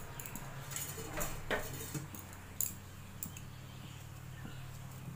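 Steady low hum in a kitchen with a few light clicks and clinks, most of them in the first three seconds.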